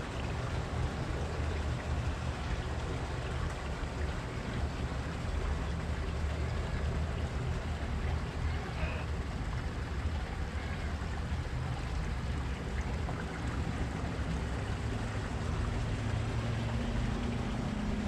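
Steady rushing of water flowing in a koi pond, with a low rumble underneath.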